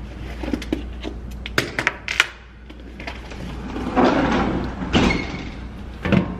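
A post office mail-drop chute's metal pull-down flap being worked as mailers are dropped in: a run of sharp clicks and clanks, two longer rattling rushes around four and five seconds in, and a thump near the end.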